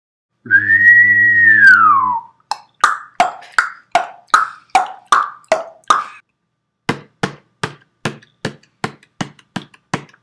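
Cartoon-style sound effects: a whistle-like tone over a low hum that rises a little and then slides down, lasting about two seconds. It is followed by a run of quick, evenly spaced plopping pops, about two and a half a second, a short break near the middle, and then a second run of pops.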